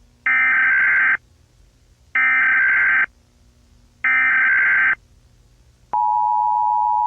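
Emergency Alert System header: three bursts of warbling SAME digital data tones, each about a second long with a second's pause between, encoding the alert. About six seconds in, the steady two-tone EAS attention signal begins, the tone that announces an emergency broadcast.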